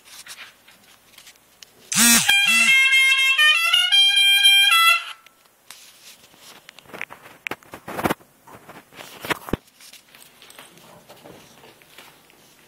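A loud three-second run of steady pitched tones that step up and down in pitch like a short melody, starting about two seconds in and stopping suddenly. Scattered knocks and handling rustle follow.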